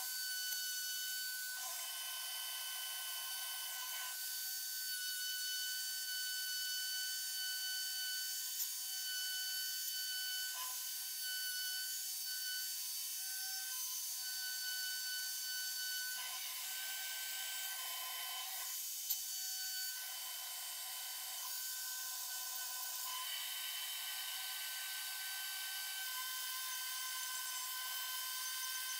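Small corded rotary tool running with a steady high whine, its small disc grinding against the raised numerals of a painted cast-iron measuring-wheel dial. The grinding grows louder for a couple of seconds at a time, about two seconds in and again from about sixteen to twenty seconds in.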